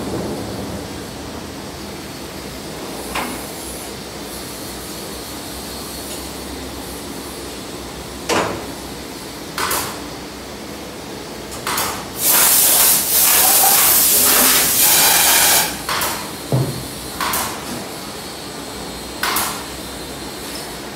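Steady machine-shop background noise, broken by a few short bursts of hiss and clatter. A little past the middle comes a loud hiss lasting about three seconds.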